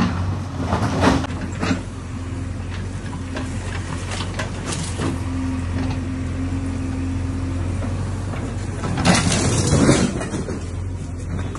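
JCB backhoe loader's diesel engine running steadily, with a few sharp knocks and clatters in the first two seconds and a louder burst of clatter about nine seconds in.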